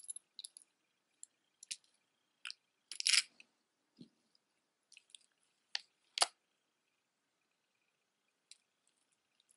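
Scattered light clicks and clinks of jewelry being handled and set down on a cloth-covered table, the loudest about three and six seconds in.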